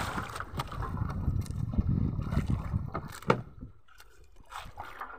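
Wind and water noise aboard a small outrigger fishing boat on open sea, a steady rumble, with a few sharp knocks, the loudest about three seconds in.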